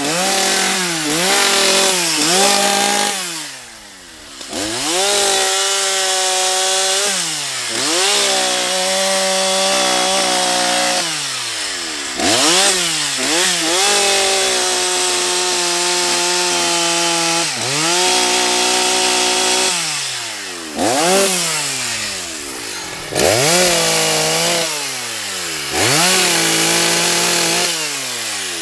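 Husqvarna 181 SE two-stroke chainsaw revved over and over: the throttle is snapped open and held at high revs, then released so the engine falls back toward idle, about a dozen times. This tests how the freshly adjusted carburettor pulls.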